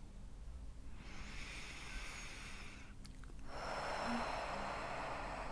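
A woman takes a slow, audible breath: a soft inhale of about two seconds, then a louder exhale of about two and a half seconds starting halfway through.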